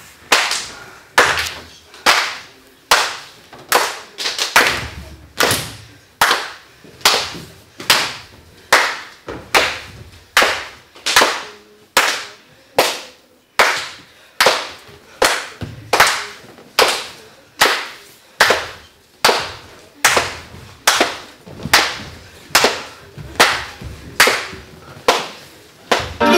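Hand claps keeping a steady dance tempo, about one and a half claps a second, echoing in a large bare room.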